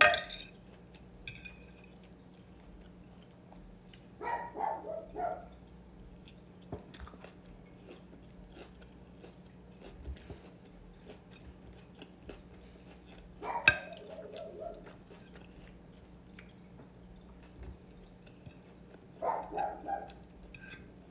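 A dog barking and yipping in three short bouts of a few calls each: a few seconds in, about two-thirds of the way through, and near the end. Between them come quiet chewing and a sharp click of a fork on a plate, over a faint steady hum.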